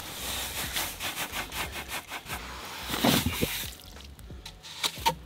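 Clam gun being worked down into wet beach sand to dig a razor clam: a gritty scraping rasp, with a louder burst about three seconds in, then quieter with a couple of clicks near the end.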